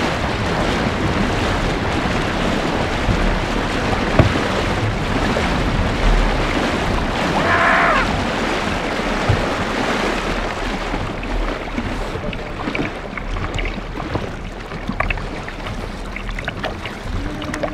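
Kayak paddle blades splashing in rhythm and water rushing along the hull during hard race paddling, with wind buffeting the deck-mounted camera's microphone. In the second half the individual splashes stand out more sharply.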